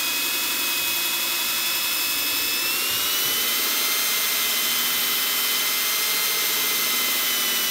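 Cordless drill running steadily at speed, spinning a wooden rocket body while fine 800-grit sandpaper is held against it for the final smoothing: a high whine over a sanding hiss, its pitch lifting slightly about three seconds in.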